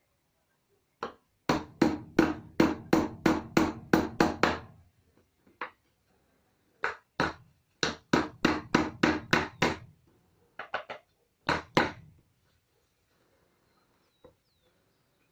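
Hammer driving nails into wood. Two runs of about ten quick blows each, some three a second, with a short pause between them, then a few scattered lighter blows.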